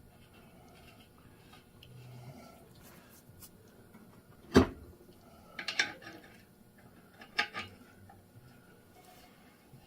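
Metal tools and parts handled against each other: one sharp clank about halfway through, then two short clusters of clinks.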